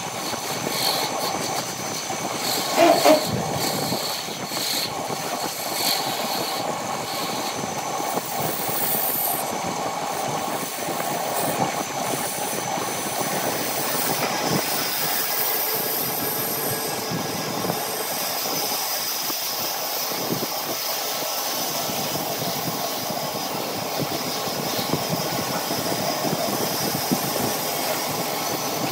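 Wood lathe running steadily while a gouge cuts the spinning wooden cup blank, a continuous motor hum with the noisy scrape of the tool on the wood. A short louder scrape about three seconds in.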